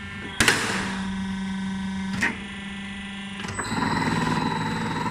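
Electric spring-coiling machine for rolling-shutter springs being started: a sharp click about half a second in, a steady motor hum, a second click about two seconds in, then the machine running louder and steadily near the end.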